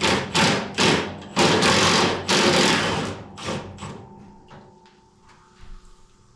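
A pneumatic tool, most likely an impact wrench, fired in repeated short bursts about three times a second, with two longer runs, stopping about four seconds in. After that only faint ticks and a quiet steady hum remain.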